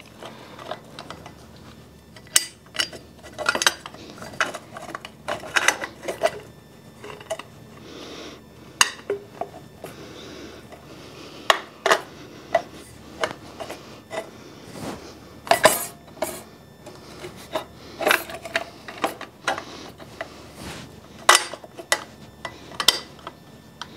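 Irregular metal clinks, taps and light scrapes as a steel exhaust up pipe and its bolts are fitted by hand to a Ford 7.3 Powerstroke's exhaust manifold.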